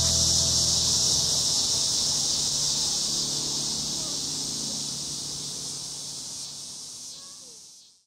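Cicada's continuous high-pitched buzz, fading out steadily and cutting off near the end. Faint background music dies away in the first two seconds.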